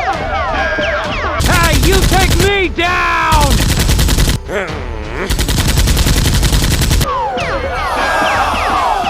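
Rapid automatic gunfire sound effects in three bursts of one to two seconds each, with wavering and falling whistle-like tones between and around them.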